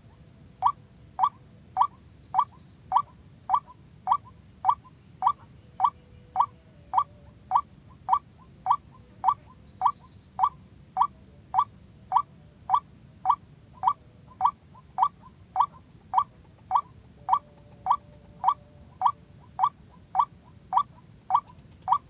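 White-breasted waterhen calling: a steady, evenly spaced series of short squeaky notes, a little under two a second.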